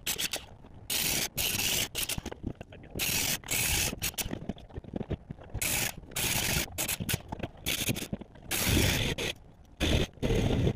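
Deck demolition work sounds in choppy, abruptly cut bursts: wooden deck boards scraping and rattling as they are pried up and tossed onto the pile.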